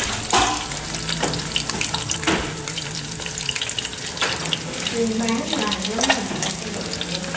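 Battered young cá linh (mud carp fry) deep-frying in hot oil in a small wok, sizzling and crackling steadily, with a few light clinks of utensils against metal.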